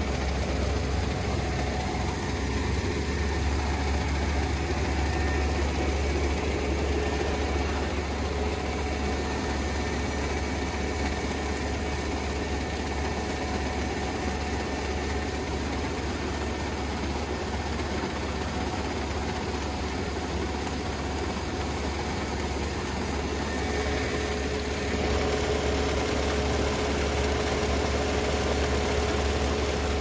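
Kubota ER470 combine harvester running steadily as it cuts standing rice: a continuous diesel engine drone with the machinery's hum over it, slightly louder near the end.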